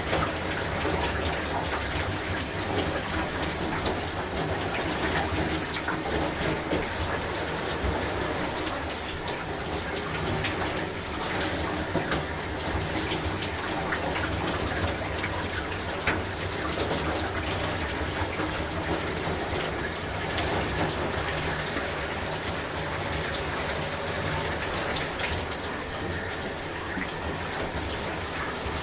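Shower running while a man washes under it: a steady spray of water falling onto him and the tub or floor, with a few brief sharp splashes or knocks.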